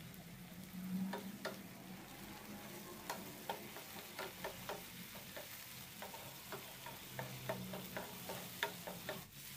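Grated tomato, onion and green chilli sizzling softly in oil in a non-stick frying pan. A wooden spatula stirs and scrapes through the mixture, tapping the pan with many light clicks.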